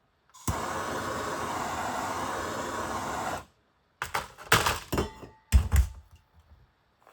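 Handheld gas torch flame burning with a steady hiss for about three seconds, starting with a click and cutting off suddenly as the flame is shut off. It is used to shrink heat-shrink tubing. A few loud clattering knocks of handling follow.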